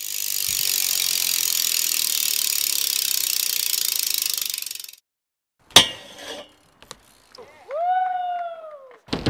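A bicycle freewheel hub clicks rapidly as the wheel spins freely, an even fast ticking for about five seconds that stops abruptly. After it comes a sharp knock, a few light clicks, and near the end a tone that rises and then slowly falls.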